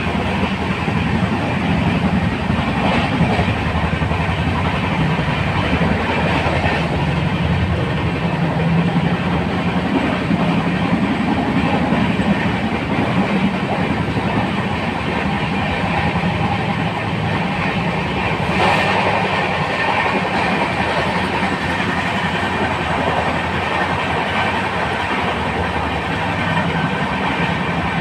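Indian Railways LHB (Linke-Hofmann-Busch) passenger coaches running along the track: a steady, loud rumble and rush of wheels on rail with some clickety-clack. There is a brief sharper burst about two-thirds of the way through.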